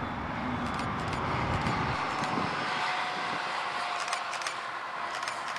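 Distant DB Class 650 diesel railcar approaching along the line: a steady hum under outdoor noise, with a low rumble that fades after about two seconds. A few camera shutter clicks about four to five seconds in.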